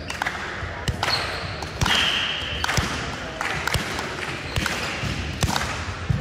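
Volleyball being struck again and again in a rally: sharp slaps of hands on the ball, about a second apart, with a brief high squeal about two seconds in.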